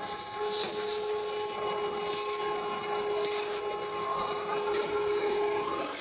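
Vacuum cleaner running with a steady whine over its motor noise, used to clean a gas furnace's burner compartment.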